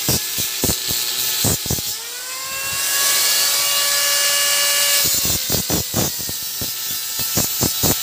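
Wire mesh of a bird cage being cut, a quick run of sharp metallic snips, several a second. About two seconds in, the snipping pauses while a small motor whines up and runs steadily for about three seconds; then the snipping resumes.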